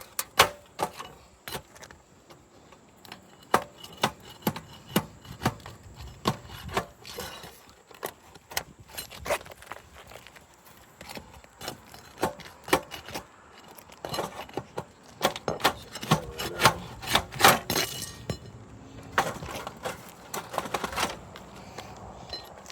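Hand tools working at asphalt roof shingles around a roof vent: irregular sharp clicks and knocks, with stretches of scraping between about 14 and 21 seconds in, as the shingles are pried loose in a repairability test.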